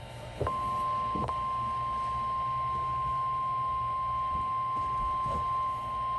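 NOAA Weather Radio 1050 Hz warning alarm tone: one steady, single-pitched beep that comes on about half a second in and holds unbroken, with a couple of faint clicks as it begins. It is the tone alert that weather radio receivers are built to react to, sent here as part of the weekly test.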